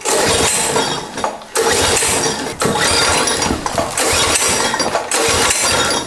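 Recoil pull starter on a go-kart's small engine, yanked several times in a row, each pull about a second of rasping cranking. The engine turns over but does not fire: a hard start in the cold.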